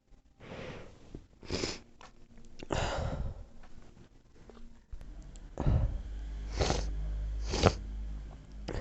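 A person sneezing again and again: about half a dozen short sneezes and sharp breaths. The last ones come about a second apart.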